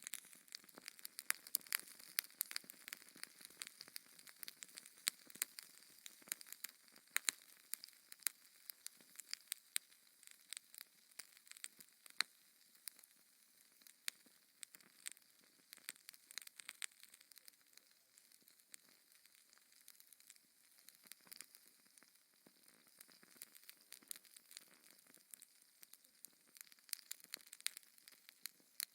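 Wood fire burning in a fireplace: a steady run of small, sharp crackles and pops over a faint hiss, denser in the first half and sparser in the middle.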